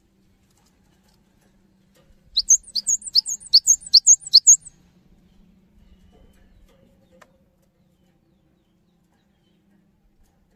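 Cinereous tit (gelatik batu) singing a quick run of about seven repeated two-note phrases, each a high note sweeping sharply down, about three a second, then falling silent.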